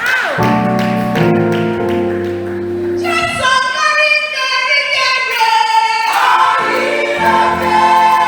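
Choir singing in held chords that change every second or two.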